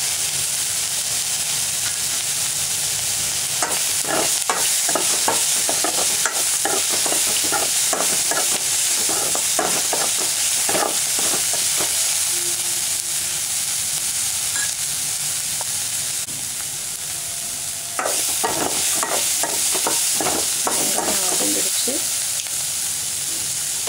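Onions, peanuts and dried red chillies sizzling steadily in hot oil in a metal pan, with a spatula scraping and stirring through them in two spells: from about four seconds in to about twelve, and again from about eighteen seconds in.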